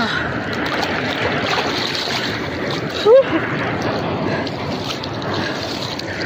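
River water splashing and lapping around a person bathing chest-deep, a steady rush of noise. A short rising cry breaks in about halfway through.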